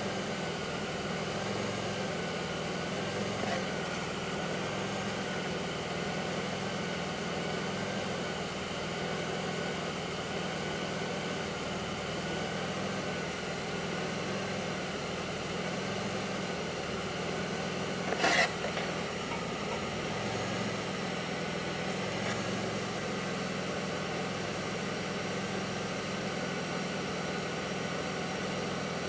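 2002 Pontiac Grand Prix's 3800 V6 idling rough: the low hum swells and dips about once a second, over a thin high whine that wavers in pitch. This is the rough, bogging idle the owner is chasing. One sharp click comes about two-thirds of the way through.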